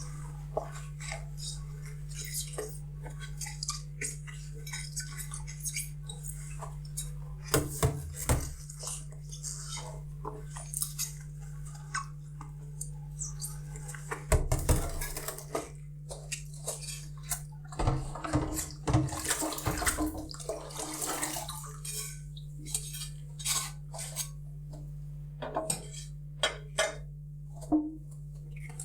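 Dishes and cutlery clinking and knocking against each other while dishes are washed by hand, with scattered light clicks and a few louder clattering clusters. A steady low hum runs underneath.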